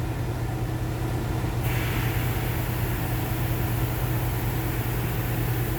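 A steady machine hum while compressed air, at about 7.5 psi on the gauge, pushes waste oil out of a tank through a hose. About one and a half seconds in, a steady hiss joins the hum.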